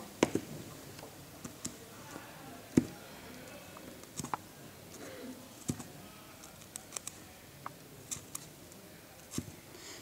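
Irregular small clicks and taps with faint scratching as a pointed tool picks apart a cable's braided copper shield, with a few louder clicks.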